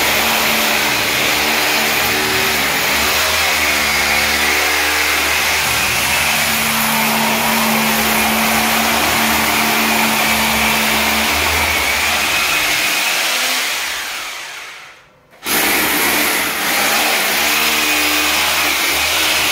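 Electric drill machine running steadily under load while drilling holes about a foot apart along the wall-floor joint for anti-termite chemical injection. It dies away about 14 seconds in and comes back suddenly a second later.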